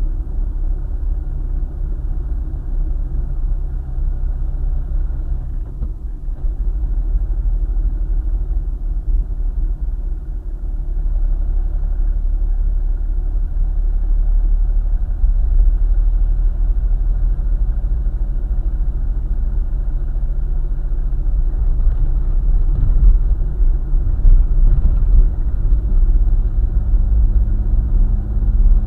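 Car driving on a highway: a steady low engine and road rumble that grows louder about a third of the way in, with a higher engine hum joining near the end.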